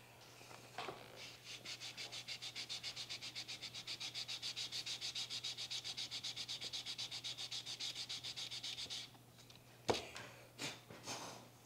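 Hand-sanding a small piece of wood on a sheet of sandpaper: quick, even back-and-forth rasping strokes that run for about eight seconds and stop suddenly. A sharp knock follows, then a couple of short scuffs.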